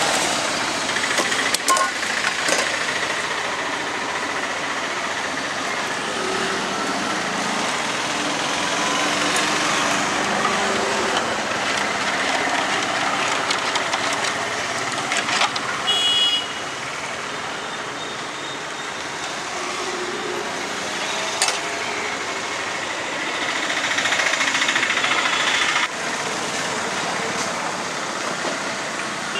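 Steady street traffic noise: a continuous wash of passing motor vehicles. A few sharp clicks sound through it, and a brief high-pitched tone comes about sixteen seconds in.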